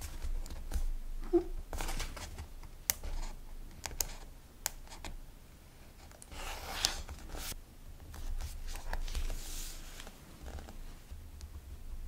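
Close-up handling sounds of metal tweezers placing a small sticker on a paper diary page: several sharp little ticks and taps, with a few soft rustles and scrapes of paper being brushed.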